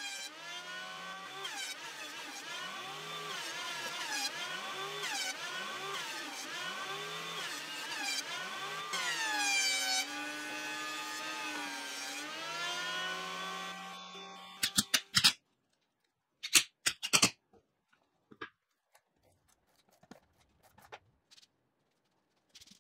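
Benchtop thickness planer running as boards are fed through, its motor pitch dipping and recovering over and over as it takes each cut. About fourteen seconds in it is switched off and winds down, followed by a few short knocks of wood being handled.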